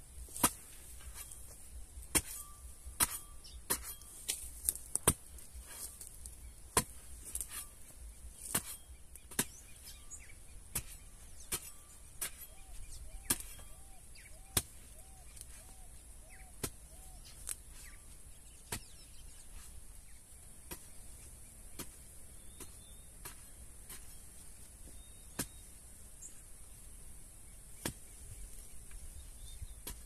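Hand hoe chopping into the soil, dozens of sharp strikes at an uneven pace, the loudest in the first several seconds: opening and loosening a planting line. A steady high hiss runs underneath.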